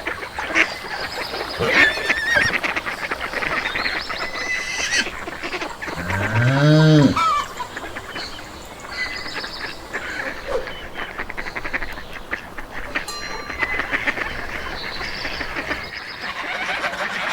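Barnyard poultry keep up a busy chatter of short honking calls throughout. About six seconds in, one low, drawn-out call rises and then falls in pitch, a cow mooing.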